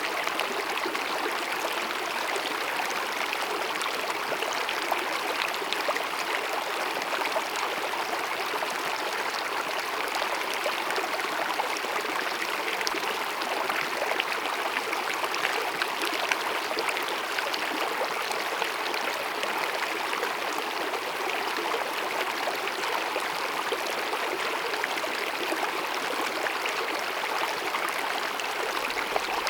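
Small glacier-fed mountain stream babbling over rocks: a steady rush of running water with fine splashing and trickling.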